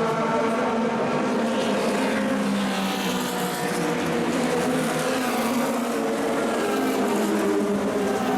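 Racing engines of 1960s cigar-shaped Formula 2/Formula 3 cars running at high revs; the engine note shifts in pitch about two to three seconds in.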